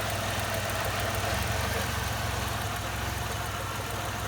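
1997 Chevrolet Camaro RS's 3800 V6 idling steadily with a ticking noise, which the owner takes for the cylinder 3 spark plug wire, the cause of its cylinder 3 misfire; the wire's boot turns out to be cracked.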